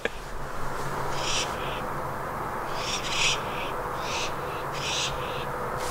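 Barn owls screeching: about five short, hissing high-pitched calls, some in close pairs, over a steady low background hum.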